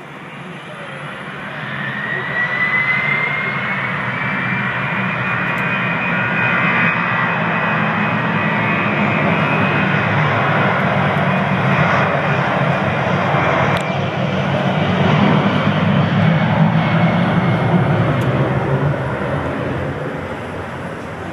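Jet airliner's engines at takeoff power: the noise swells over the first couple of seconds, holds loud, then fades near the end as the plane departs. A high whine rises in pitch over the first several seconds.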